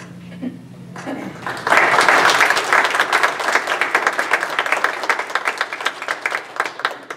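Applause from a room of people, breaking out about a second and a half in, strongest at the start and thinning to a few scattered claps near the end.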